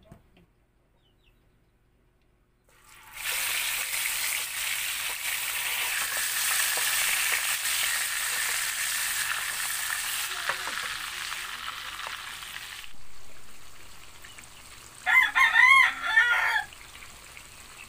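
Fish steaks frying in hot oil in a pan: a loud sizzle starts suddenly about three seconds in, then drops sharply to a softer sizzle about ten seconds later. Near the end a rooster crows once, the loudest sound.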